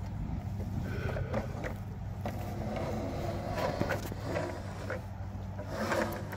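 Extension ladder being slid up against a pole, its upper section giving a few scattered clicks and scrapes as it rises, over a steady low rumble.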